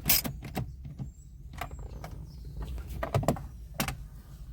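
Scattered clicks and knocks of a mini ratchet and hands working on the stereo mounting and plastic trim in a car dashboard, the sharpest right at the start, over a steady low hum.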